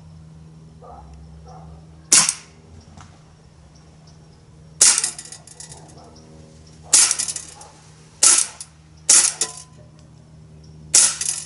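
BB air pistol firing six single shots at uneven intervals, each a sharp crack with a short rattling tail. It is shooting copper-coated lead low-ricochet BBs into a pellet trap.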